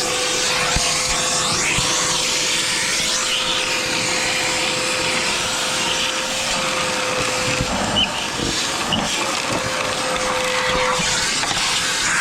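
A motor running steadily, driving a loud rush of air with a constant whine, while dust is blown out of a dirty vacuum. There is a light knock about eight seconds in.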